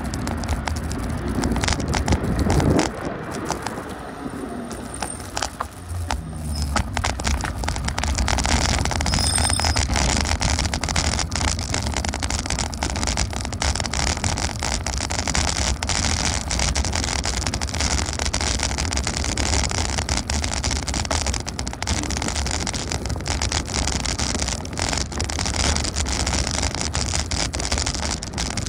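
A vehicle on the move: a steady low rumble with wind noise that builds up about six seconds in, and a brief high ring about nine seconds in.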